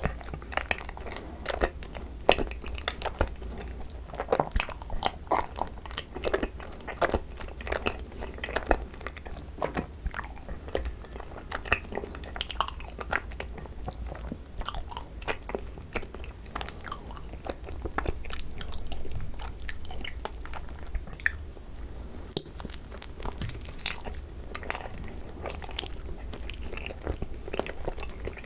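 Close-miked chewing and biting of Korean rice cakes filled with cream cheese, with many short, irregular mouth clicks and smacks throughout.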